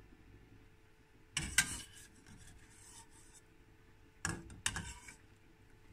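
A kitchen utensil scraping and knocking against the bottom of a stainless steel pot of water, in two short bursts: one about a second and a half in, another about four seconds in.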